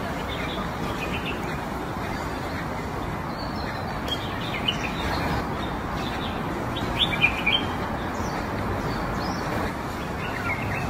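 Small birds chirping in short, scattered calls, with a quick cluster of sharper chirps about seven seconds in, over a steady background hiss.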